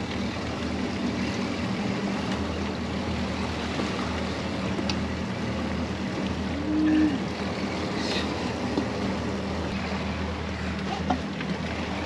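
Twin outboard motors idling steadily under wind and water noise on an offshore fishing boat. A short low tone, the loudest moment, comes just past the middle.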